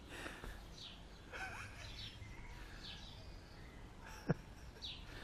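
Faint bird chirps, short falling notes every second or two, over a low steady background, with one sharp click about four seconds in.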